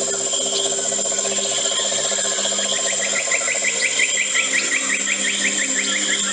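Nature sounds over soft, sustained low music tones. A rapid pulsing animal call runs through the first half, with a steady high insect-like hiss. In the second half a bird gives a quick series of short rising chirps, several a second.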